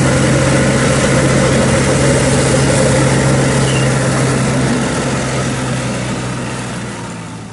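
KANEKO tracked hammer-knife mower running, its engine and spinning flail rotor chopping through tall weeds, with a steady low hum; the sound fades away over the last couple of seconds.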